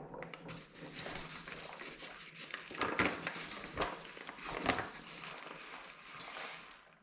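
Rustling and crinkling with a few light knocks as bread ingredients and kitchenware are handled; the handling stops near the end.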